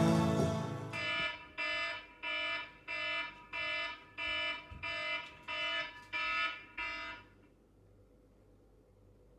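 Electronic alarm beeping, a pitched beep about twice a second, roughly a dozen times, stopping about seven seconds in. Background music fades out just before it starts.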